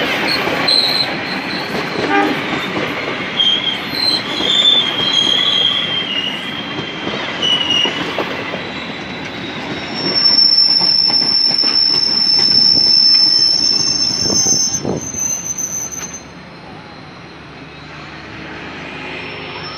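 Local passenger train coaches rolling along the platform and braking, with rumbling wheels and high, wavering wheel-and-brake squeals, then one steady high squeal. The noise falls away sharply about sixteen seconds in as the train comes to a stop.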